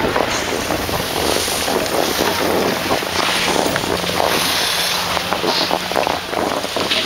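Wind buffeting the camera microphone, mixed with the hiss and scrape of skis gliding over packed snow.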